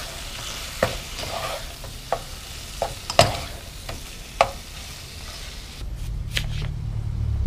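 Ground beef sizzling in olive oil in a saucepan while a plastic spatula stirs and breaks it up, with several sharp knocks of the spatula against the pan. Near the end the sizzle stops, leaving a low hum and a couple of taps of a knife slicing apples on a wooden cutting board.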